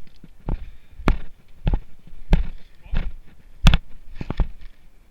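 Footsteps of a player on the move, a sharp thud at an even pace of roughly three steps every two seconds.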